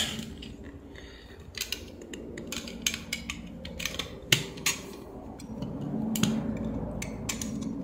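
A utility knife blade worked into the glued seam of an Apple 20 W USB-C charger's plastic case, giving irregular small clicks, cracks and scrapes as the case is pried apart, with one sharper crack about four seconds in.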